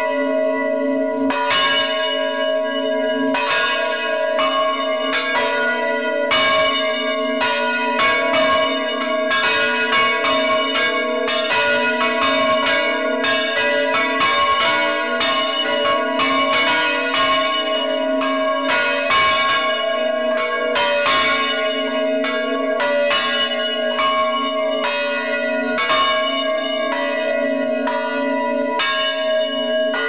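Several bronze church bells swinging and ringing together, heard from right beneath them in the belfry. Their strikes overlap in a rapid, uneven run, several a second, over a steady ringing hum.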